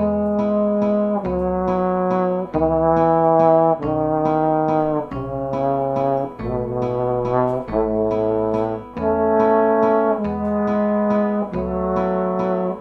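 Layered trombone parts playing a slow instrumental passage of held chords, a new chord about every second and a half, with the bass line stepping down and then climbing back up.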